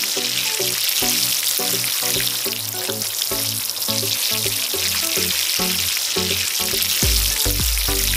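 Steady hiss of water spraying from a toy water tanker onto a sand seedbed, under background music whose bass comes in near the end.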